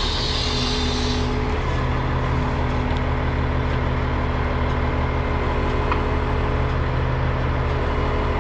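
Tow truck engine idling steadily, a constant low rumble. A high hiss over it cuts off about a second in.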